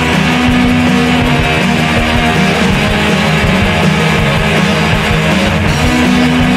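Rock band track, loud and steady, led by strummed electric guitar.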